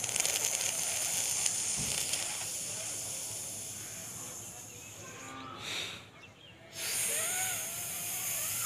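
Sheetali pranayama breathing: a long hissing inhalation drawn in through the rolled tongue and pursed lips, fading over several seconds, a brief break around six seconds in, then another breath starting.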